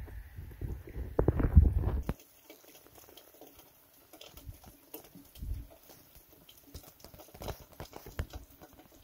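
Wind rumbling on the microphone for about two seconds. Then, after a sudden change, faint meltwater trickling with scattered small ticks and drips beside melting snow.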